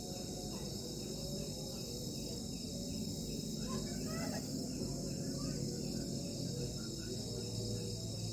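Crickets chirring steadily in several overlapping high-pitched bands, with faint voices in the background.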